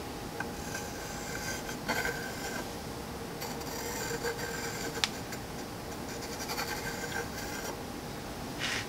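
Pencil compass scribing circles onto a zebrawood board: the pencil lead scratches over the wood in passes, one short, one long through the middle, and a brief one near the end, with a single sharp click about five seconds in.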